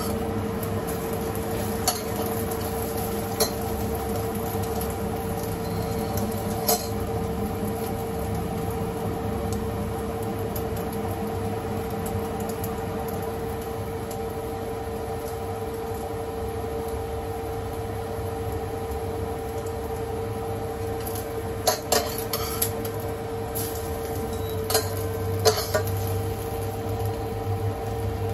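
Dishes and utensils clinking now and then, a few sharp clinks with a tight cluster of them about three-quarters of the way through, over a steady machine hum that holds one constant tone.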